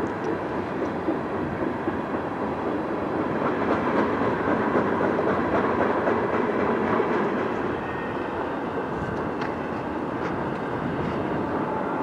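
Freight train's tank cars and double-stack container cars rolling past, a steady rumble of steel wheels on the rails with a few light clicks near the end.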